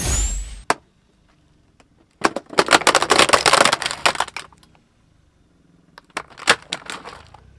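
A car tyre crushing a plastic toy jeep: a dense run of cracking and snapping plastic lasting about two seconds, then a few scattered cracks near the end.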